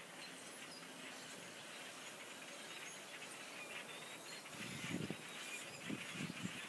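Birds chirping faintly over steady outdoor noise, with two short low rumbles about two-thirds of the way in and near the end.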